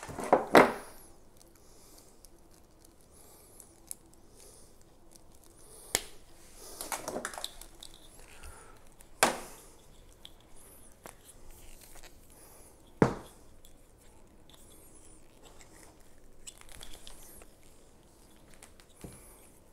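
Handling noise from a power cord being unwound and straightened: a few sharp clacks and knocks of the plug and cable, the loudest right at the start, with a short stretch of rustling in between.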